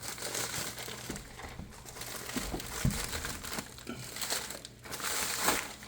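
Parcel packaging being opened and rummaged through: plastic or paper crinkling and rustling in irregular bursts, with one light knock a little before the middle.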